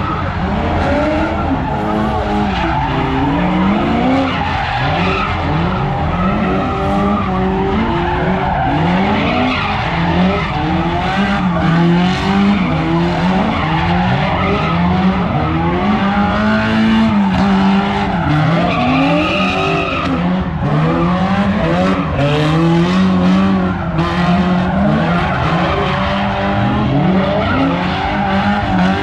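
A car doing donuts: its engine held at high revs, pitch rising and falling continually as the throttle is worked, over the steady screech of spinning tyres.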